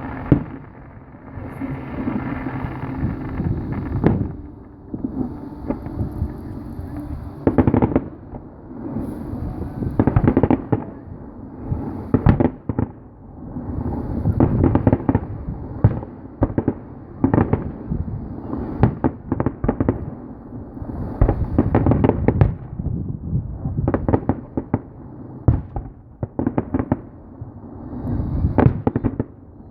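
Aerial fireworks bursting in a long, uneven run of bangs, often several in quick succession, densest through the second half.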